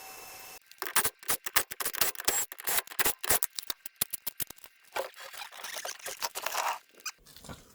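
A steady hum cuts off under a second in. Then comes irregular metal clattering, with quick sharp clicks, knocks and scrapes, like steel parts and tools being handled and shifted around.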